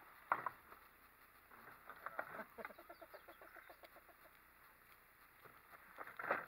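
Faint bird calling: a quick run of clucking notes about halfway through. Two sharp knocks, one near the start and one near the end.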